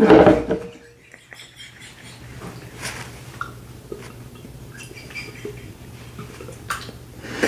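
Stifled laughter: a loud burst of laughing at the start, then faint squeaks, breaths and small clicks as the laughing is held in.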